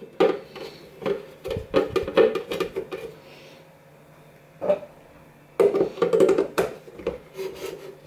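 Clicks and knocks of hard plastic as a Krups Claris F08801 water filter cartridge is screwed into an espresso machine's plastic water tank. The clatter comes in two runs, one of about three seconds and a shorter one later, with a quiet spell between.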